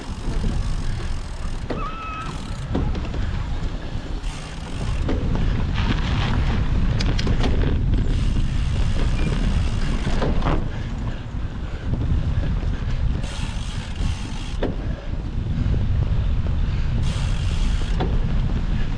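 Wind rumbling over the microphone of a camera on a moving cyclocross bike, with scattered knocks and rattles as the bike runs over rough ground.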